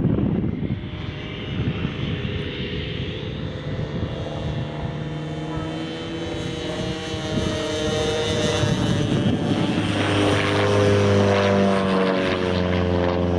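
Engine and propeller of a Seagull Super Stearman radio-controlled model biplane flying a landing circuit, the pitch shifting gently with the throttle. It grows louder in the last few seconds as the model comes closer.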